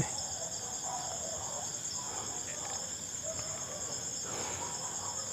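Crickets chirping: a steady, dense, high-pitched trill, with a few faint, scattered lower sounds underneath.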